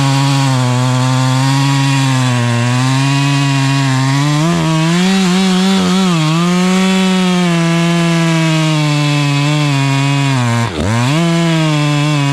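Two-stroke chainsaw running at full throttle while cutting through wood, its pitch sagging a little under load several times. It dips sharply once, about ten and a half seconds in, and picks straight back up.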